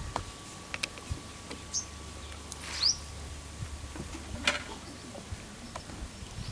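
Bajjis frying in a kadai of hot oil: a faint sizzle with scattered pops and clicks. A few short bird chirps, one rising, come about three seconds in.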